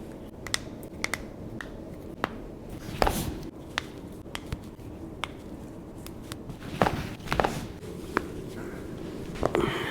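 Irregular light clicks and soft knocks of movement, with louder thumps about three seconds in, around seven seconds in and near the end.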